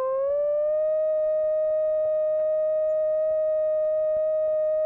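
Steady electronic tone from a sound generator, with overtones, gliding up in pitch during the first second and then held at one pitch: the test tone used to set Helmholtz resonators resonating.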